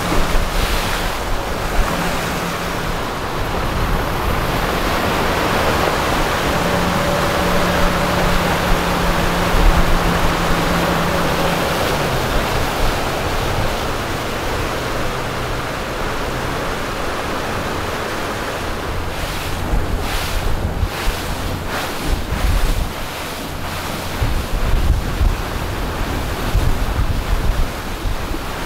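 Steady wind rushing on the microphone, with a water-like hiss. A faint low steady hum runs underneath and drops in pitch partway through.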